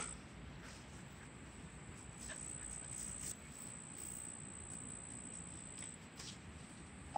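An insect singing one steady, high-pitched note that breaks off briefly near the end, over faint outdoor background noise.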